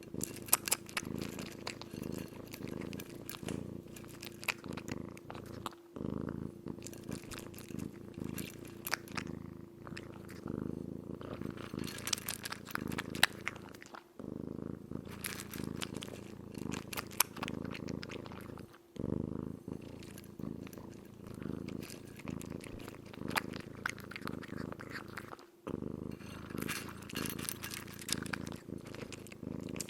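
Close-miked kitten chewing and munching its food: a dense run of sharp clicks and smacks over a low steady rumble, breaking off briefly a few times.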